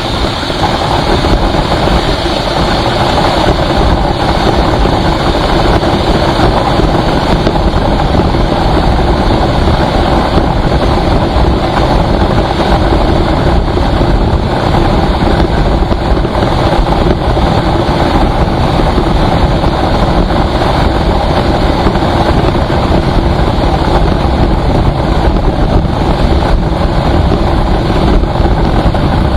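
A road vehicle driving on the highway: loud, steady engine and road noise that does not let up.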